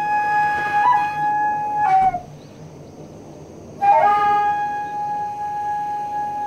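Daegeum, the Korean large bamboo transverse flute, playing a long held note. The note bends down and breaks off about two seconds in, and after a pause of nearly two seconds the same note returns with a short upward flick and is held again.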